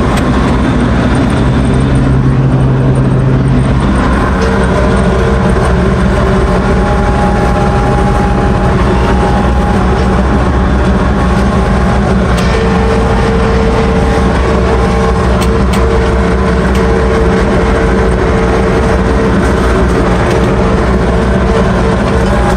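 Diesel engine of a Ransomes FrontLine 723D front mower running steadily while mowing, with whining tones that come and go over its steady drone.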